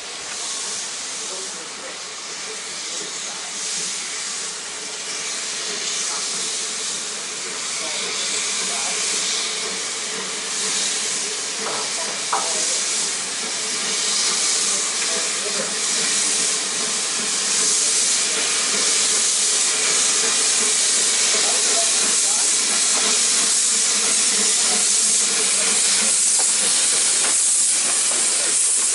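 Narrow-gauge steam tank locomotive pulling a train of coaches, its cylinder drain cocks blowing off a continuous hiss of steam that grows steadily louder as it draws near.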